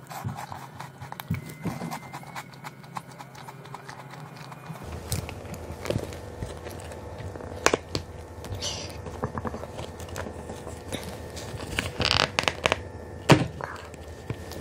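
Close-miked eating and handling sounds: a crisp wafer being bitten and chewed, then a run of clicks and crackles from a clear plastic tray as a cocoa-dusted chocolate rice-cake skewer is worked loose and lifted out. The loudest sharp clicks come in the second half.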